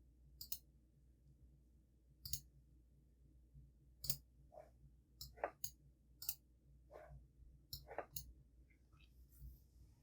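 Computer mouse clicks, about ten short separate clicks at irregular intervals, over near silence.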